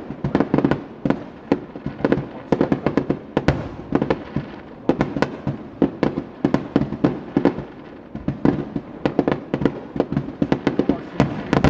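Fireworks finale barrage: an unbroken run of sharp bangs from aerial shells bursting, several a second.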